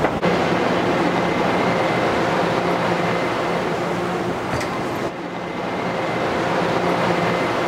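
São Paulo Metro Line 4-Yellow subway train running, a steady rumble and hiss with a faint steady whine over it, dipping briefly a little after five seconds in.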